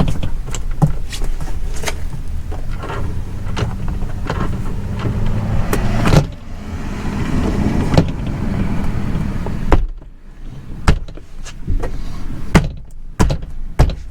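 Plastic clicks and knocks as a car door panel's snap clips are pressed into the door, over a steady low rumble that stops about ten seconds in.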